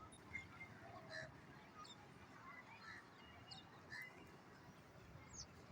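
Faint, scattered bird chirps and tweets, short quick calls repeating irregularly, over a quiet low hum.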